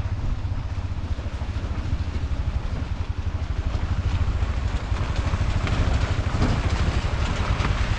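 Motorcycle engine running as the bike is ridden in first gear, under a steady deep rumble and hiss that grows a little louder past the middle.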